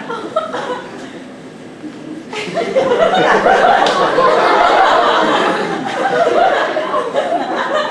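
Audience laughter, swelling about two seconds in and carrying on, many voices at once, for several seconds before easing off near the end.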